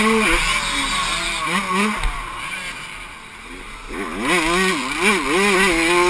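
Suzuki RM85's 85cc two-stroke motocross engine, heard from the rider's helmet: it runs at high revs, then drops off to a quieter note for a couple of seconds as the bike goes through a turn. Around four seconds in the revs jump up and down quickly several times, then hold high again near the end.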